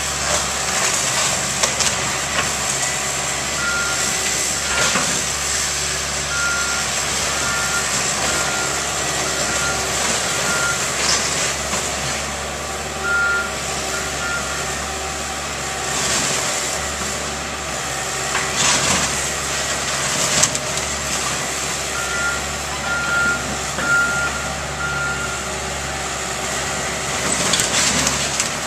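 Excavator engine running steadily while a backup alarm sounds short repeating beeps in several spells. There are bursts of crashing and cracking from demolition debris being moved at intervals.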